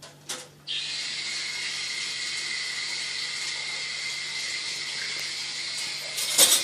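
A couple of soft knocks, then a steady hiss of running water that starts abruptly just under a second in, with a brief louder rush near the end.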